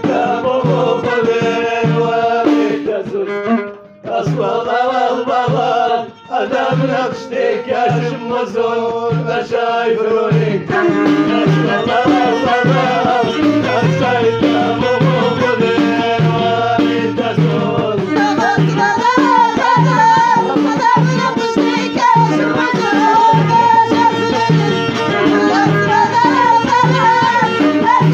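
Moroccan Middle Atlas folk music: a steady hand-drum beat, a little more than one stroke a second, under a bending melodic line, with two short breaks in the first few seconds.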